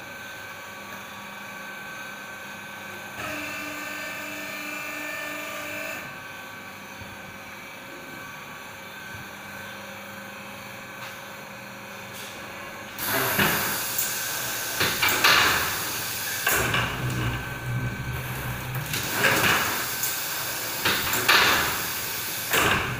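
MP-1800 pneumatic sheet feeder for corrugated board running: a low steady hum at first, then about halfway through, once started, repeated bursts of air hiss and mechanical clatter every second or two as its air cylinders and suction cups work, over a motor hum.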